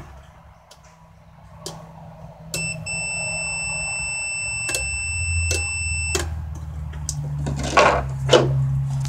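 A multimeter set to continuity gives one steady high beep for about three and a half seconds as the ignition is switched on, starting and stopping with sharp clicks from the car's relays energising and dropping out. There are several single relay clicks, a low hum underneath, and two louder scuffing noises near the end.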